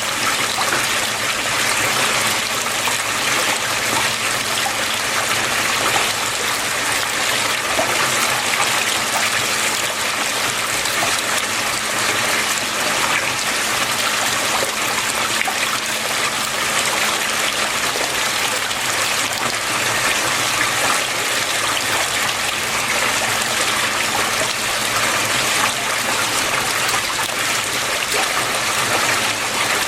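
Water flowing and splashing steadily, with a faint low hum underneath.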